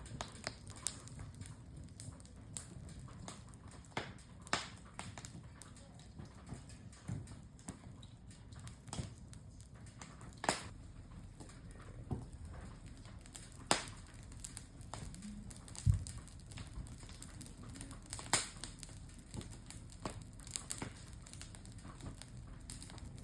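Campfire wood crackling, with irregular sharp pops every second or two over a low steady rumble.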